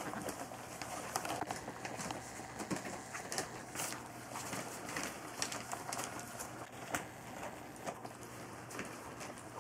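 Three-week-old golden retriever puppies scrabbling and padding about on newspaper, with crinkling paper and many small irregular taps, and a few soft high squeaks from the puppies.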